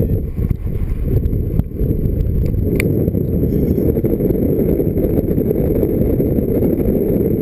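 Wind buffeting the camera's microphone during a paraglider flight: a steady low rumble of rushing air.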